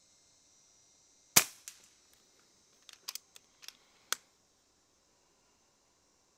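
AirVenturi AvengeX .22 PCP air rifle firing once with a sharp crack, followed a moment later by a fainter knock. About a second and a half later comes a run of light mechanical clicks and one sharper click as the action is cycled for the next pellet.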